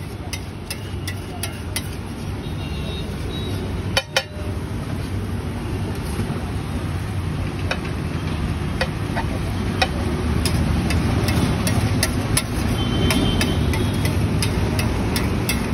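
Steel spatula scraping and tapping on a large iron tawa griddle, with irregular sharp clicks and a louder knock about four seconds in, over a steady low rumble.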